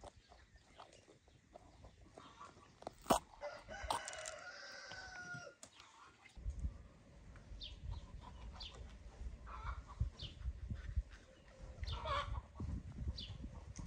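A rooster crows once, a long pitched call about four seconds in, with a few sharp knocks around it. Later come short, high bird chirps over a low rumble.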